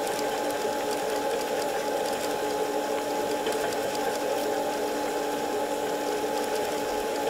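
Steady mechanical hum made of several fixed tones, with a fine fast rattle over it: the ferry's running machinery heard inside a passenger cabin.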